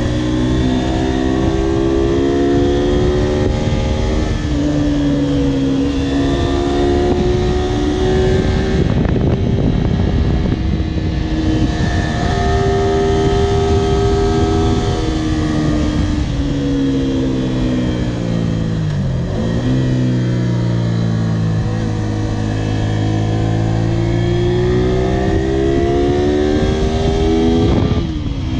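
Honda VTR250's small V-twin engine running on the road, its pitch climbing and falling repeatedly as the rider works the throttle and gears, with a sharp drop and climb again near the end.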